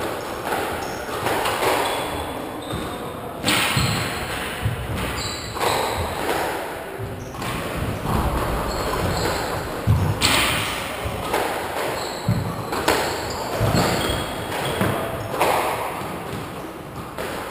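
Irregular, sharp squash ball impacts, a few seconds apart, echoing through a large hall.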